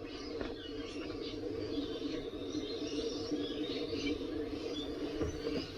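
Veteran Sherman electric unicycle wheel spinning freely with its freshly fitted knobby tyre: a steady hum, with faint high squeaks and chirps over it.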